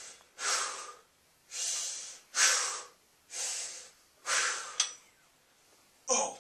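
A weightlifter bench-pressing a barbell, taking hard, hissing breaths in and out, about one a second, with a short break near the end before one more sharp breath.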